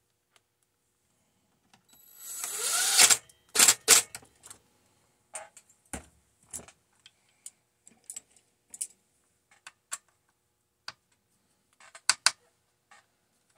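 A cordless drill runs briefly with a rising whine as it spins up, followed by scattered sharp clicks and knocks of tools and parts being handled, loudest in two quick pairs, one right after the drill and another near the end.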